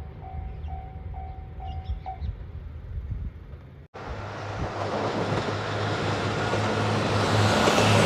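Level crossing warning bell ringing about twice a second, stopping about two seconds in. After a cut, a train approaches: a low engine hum and rising rail noise grow steadily louder toward the end.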